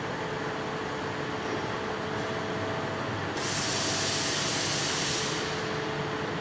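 Fiber laser metal-cutting machine running with a steady hum and two faint steady whines. About halfway a loud hiss starts, lasts about two seconds, then stops.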